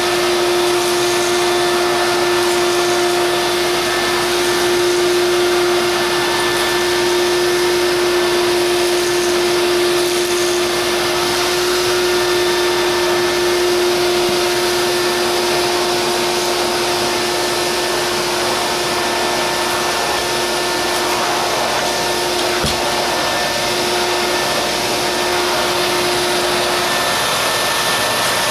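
A 1980s Hoover Portapower vacuum cleaner runs steadily, its motor giving a constant whining note over the rush of air. The whine fades out shortly before the end.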